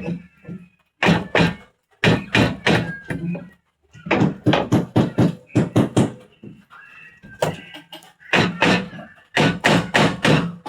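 Repeated blows knocking on wood, in quick runs of several strikes with short pauses between, as in hammering.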